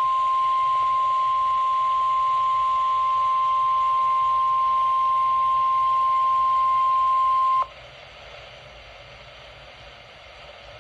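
NOAA Weather Radio warning alarm tone: a single steady high beep held for about seven and a half seconds, then cutting off suddenly, signalling that a National Weather Service alert follows. Faint radio hiss remains after the tone stops.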